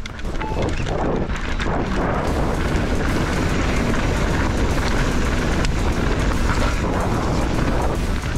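A short electronic beep about half a second in, then wind rushing over the microphone together with tyre noise and steady rattling and knocking from a mountain bike riding fast over rough ground. The noise builds over the first second and then holds steady.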